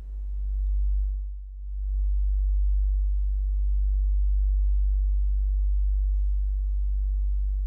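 Deep, steady low drone, a single sustained bass tone with faint overtones, dipping briefly about a second and a half in.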